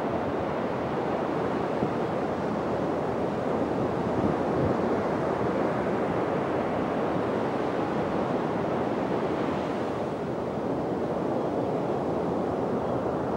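Ocean surf, a steady rush that swells slightly about four seconds in.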